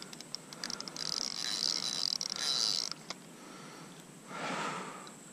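Spinning reel being cranked to bring in a hooked sunfish: a few ticks that run into a fast, steady whirring with rapid clicks about a second in, stopping abruptly about three seconds in. A brief soft rush follows near the end.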